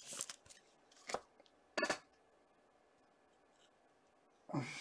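Trading cards and their packaging handled by hand: a few short rustles and clicks in the first two seconds, then a longer rustle near the end.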